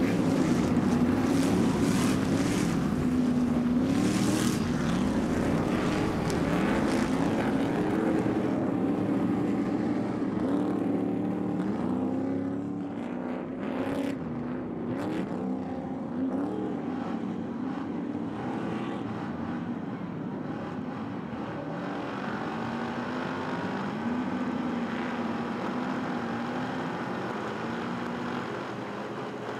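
Stadium Super Truck V8 race engines running hard on a wet track, the engine note climbing and dropping over and over as the trucks accelerate and shift through the gears, with a hiss of water spray off the tyres.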